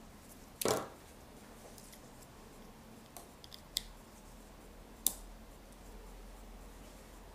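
Small electronics boards and wires being handled on a table: a clunk under a second in, then a few short sharp clicks, with a faint low hum setting in about halfway through.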